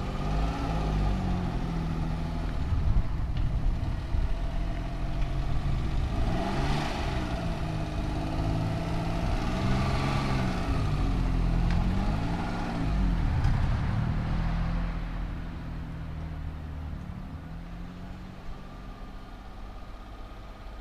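1984 Suzuki Fronte 550's small engine through its one-off side-exit muffler, revving up and down several times as the car manoeuvres and pulls away. It then fades as the car drives off down the street.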